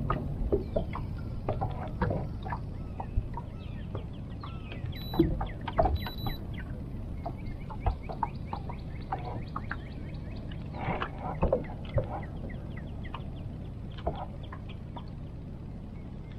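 Many short bird calls over a steady low rumble, with two brief high beeps about five and six seconds in.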